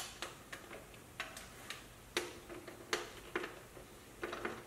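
Screw being turned by hand into the plastic rear speaker holder: a dozen or so short, irregular clicks, about two a second, as the driver is worked round until the screw is tight.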